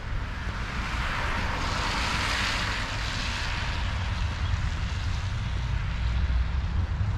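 A vehicle passing on the snowy street: tyre hiss swells about a second in, peaks near the middle and fades away, over a steady low rumble.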